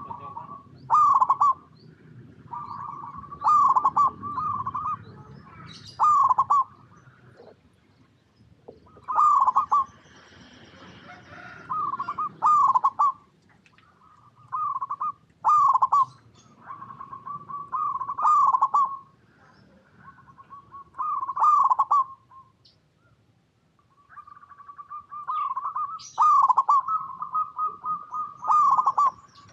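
Zebra doves cooing over and over: each phrase is a held note near the same pitch that breaks into a quick run of rolling coos, the phrases following one another every second or two.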